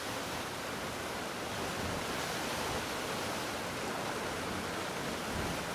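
Steady rush of churning whitewater in a mountain river.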